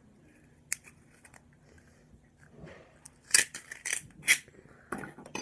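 Thin plastic ping pong ball shell being cut open: a faint click about a second in, then a quick cluster of sharp snips and cracks from about three seconds in, and more near the end.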